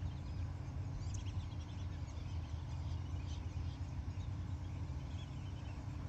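Faint, scattered chirps of small songbirds over a steady low background rumble.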